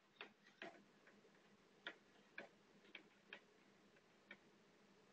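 Faint, irregularly spaced clicks, about seven of them, over a faint steady low hum.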